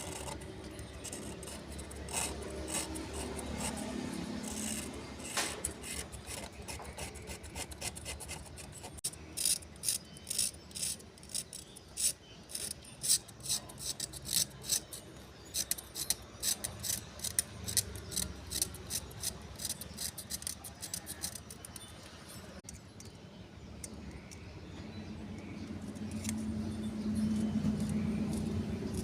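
Hand tools working on a piece of equipment: scraping and rubbing, with a dense run of sharp clicks and taps through the middle, growing louder and lower near the end.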